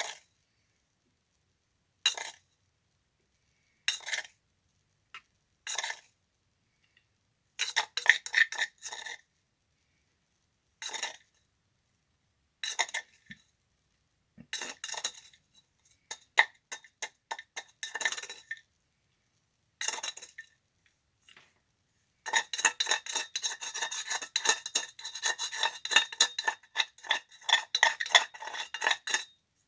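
Spoon scraping and clinking against a small mold and cup while a dry Portland cement and sand mix is added and worked in. It comes in short, separate scrapes every couple of seconds at first, then turns to steady rapid scraping for the last several seconds.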